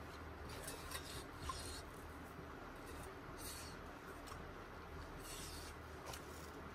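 Eating utensil scraping a cooking pot in a handful of short scrapes a second or two apart, over a faint low hum.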